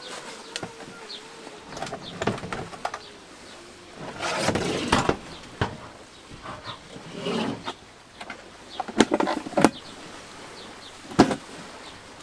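Plastic knocks, scrapes and rattles of a portable gas camping stove being lifted out of its hard carry case and the case being opened and put aside. There is a longer scraping rattle about four seconds in and a few sharp clicks near the end.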